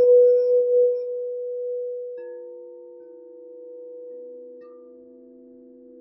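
Crystal singing bowls from a seven-bowl chakra set ringing with pure, overlapping tones. One bowl's tone pulses about three times a second, then stops pulsing about a second in and fades. A lower bowl comes in softly about two seconds in, and a still lower tone joins a couple of seconds later, both ringing on.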